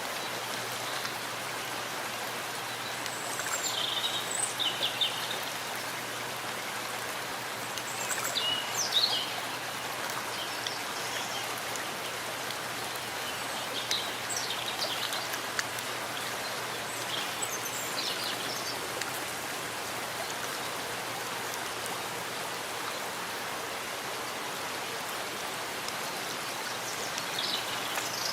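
Steady rain falling in a forest, an even hiss, with short high bird chirps every few seconds.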